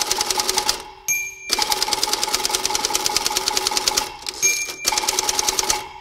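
Typewriter typing in fast, very even keystrokes over a steady hum. Two short pauses each carry a single ding of the line-end bell, about a second in and again past four seconds.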